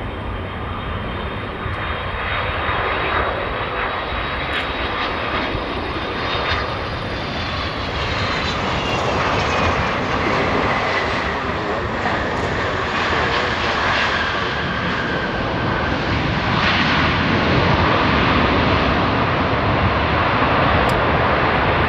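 Airbus A330-300 airliner's jet engines passing close by, with a steady rush and a high whine that falls in pitch as the aircraft goes past. The noise grows louder through the pass.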